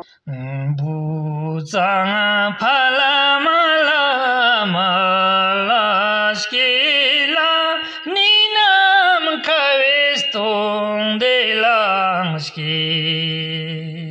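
A man singing solo, unaccompanied, with long wavering held notes.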